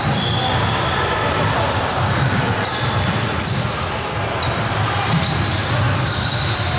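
Sounds of a basketball game on a gym court: the ball bouncing as it is dribbled, with short high-pitched squeaks, typical of sneakers on the hardwood, over a steady din.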